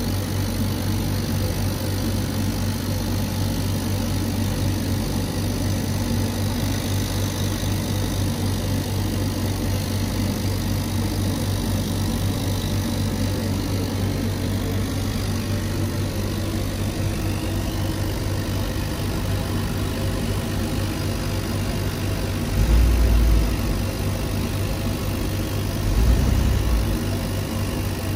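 Laser cutter running while contour-cutting a print on MDF: a steady mechanical hum and hiss. Two brief louder low rumbles come about 23 and 26 seconds in.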